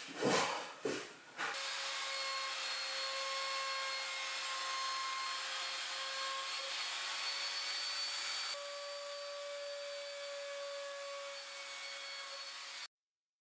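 A few knocks, then a compact trim router running with a steady high whine as it routes the edge of a plywood workbench top. The whine drops a little in level about two-thirds of the way through and cuts off suddenly near the end.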